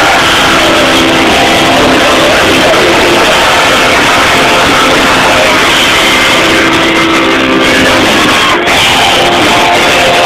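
Rock band playing live through a PA, electric guitars to the fore, loud and unbroken, recorded from the audience.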